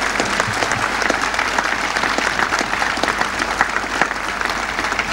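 Large crowd applauding: dense, steady clapping from many hands.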